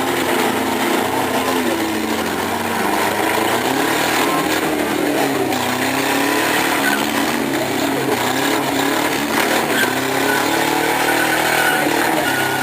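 Engines of several small front-wheel-drive demolition derby cars running hard, their pitch rising and falling as they rev up and ease off.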